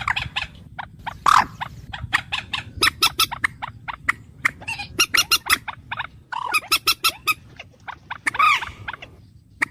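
Bird calls: a dense run of short, sharp chirps several per second, with a longer call about a second in and another near the end.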